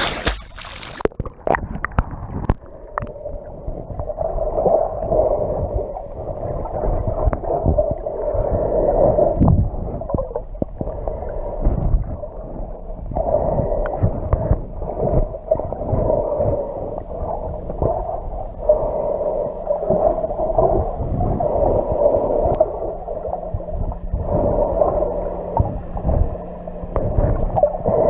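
Muffled underwater sound from a GoPro dipped below the sea surface while snorkelling. The higher sound cuts off about a second in as the camera goes under. After that come water sloshing and knocking against the housing, over a muffled drone that swells and fades.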